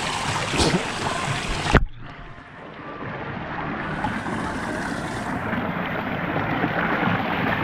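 Rushing water of a waterfall-fed pool. About two seconds in, after a sharp knock, the sound turns abruptly dull and muffled as the microphone goes underwater, leaving a low underwater rumble.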